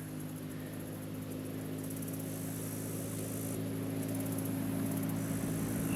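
A steady low engine hum with several pitched tones, slowly growing louder.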